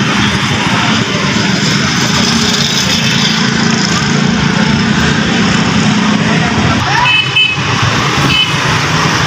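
Steady, loud road traffic noise from passing vehicles, with two short high beeps near the end.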